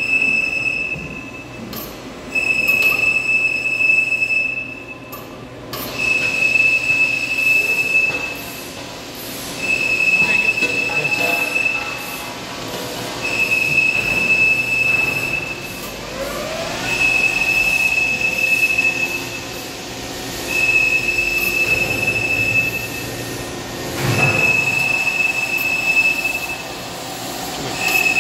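Doosan Puma 800LMB II CNC turning center running its spindle with the large four-jaw chuck spinning empty. The machine noise swells and fades about every three and a half seconds, and a high steady tone sounds during each swell.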